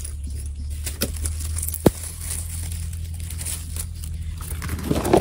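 Rustling, crinkling handling noise over a steady low hum, with a sharp click just before two seconds in and louder rustling near the end.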